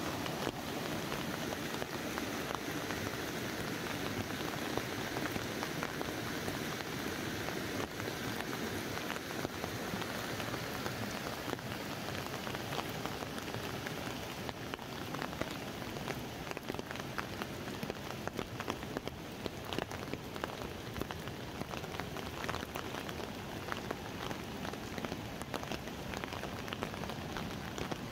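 Rain falling on an umbrella overhead, with many fine drop taps over a steady hiss. The rushing of river rapids is mixed in through the first half, and from about halfway the separate drop taps stand out more as the water sound drops back.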